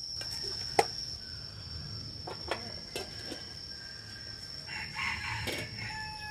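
A rooster crowing once late on, a call of a second or two with a falling tail. Before it come a few metal clinks, the loudest about a second in, as an aluminium pot lid is set in place. A steady high-pitched whine sounds underneath.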